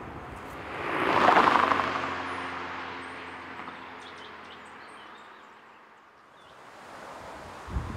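A motor vehicle driving past on a road, its tyre and engine noise swelling to a peak about a second in and fading away over the next few seconds. Wind buffets the microphone near the end.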